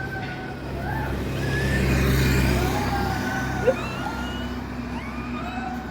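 A motor vehicle passing on the road: a low engine rumble that swells to its loudest about two seconds in and then fades. Over it come several short high-pitched whines that rise and fall.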